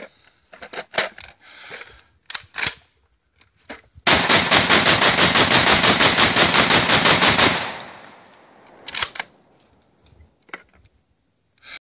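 Saiga 12 short-barrelled 12-gauge shotgun fired in one rapid unbroken string of shots, about seven a second for three and a half seconds, starting about four seconds in and emptying a drum magazine. Before the string come sharp metallic clicks and clacks of the drum being fitted and the gun handled, and a few handling clicks follow it.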